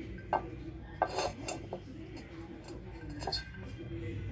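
A handful of light clinks and knocks of a plate or dish being handled, bunched about a second in and again near the end, with a faint steady hum underneath.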